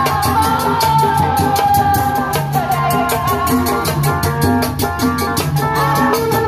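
Tanji street band playing dangdut-style music through loudspeakers: a steady drum beat and bass pulse under a held, wavering melody.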